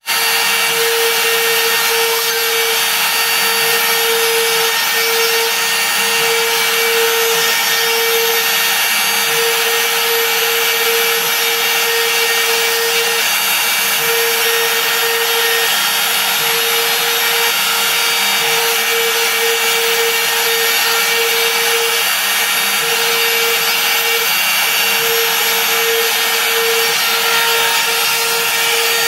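Trim router spindle on a LowRider 2 CNC running at speed, its bit cutting a thin fibreboard sheet: a loud, steady high whir and hiss over a strong hum that wavers and breaks briefly now and then as the machine moves the router.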